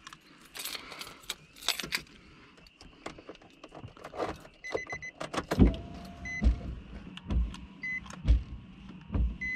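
Clicks and rattles of hands working in the door of a 2008 Nissan 350Z. About halfway in, dull low thumps start, roughly one a second, while short high electronic beeps repeat every second or so.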